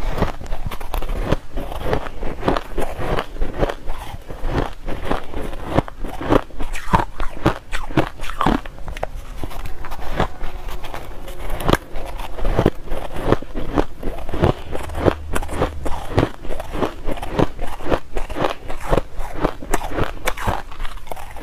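Close-miked crunching of blender-shaved ice being bitten and chewed: a rapid, steady run of sharp crisp crunches, several a second.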